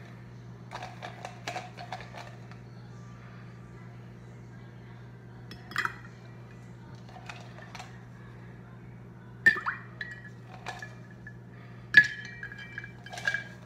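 Ice cubes dropped one at a time into a cup of fruit punch, each landing with a sharp clink and a brief ring; a few light ticks first, then four separate clinks a few seconds apart, the loudest two near the middle and end. A steady low hum runs underneath.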